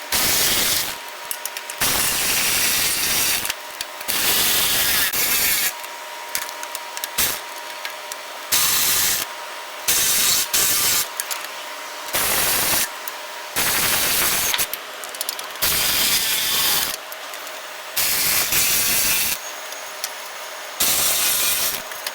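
Power tool with an 8 mm socket driving the front valance's mounting bolts home, in about a dozen short runs of a second or two with brief pauses between bolts.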